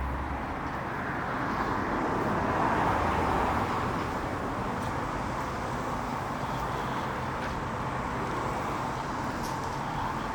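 Steady outdoor road traffic noise, swelling for a moment about two to three seconds in.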